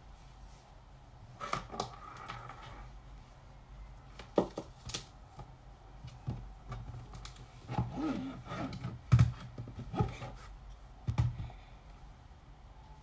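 Irregular clicks, taps and a few sharper knocks: handling noise from a phone being picked up, held and set down.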